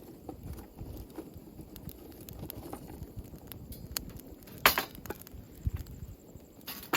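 Wood fire burning in a Firebox G2 stove: scattered light crackles and clicks, with a sharp crack about two-thirds of the way through and another near the end.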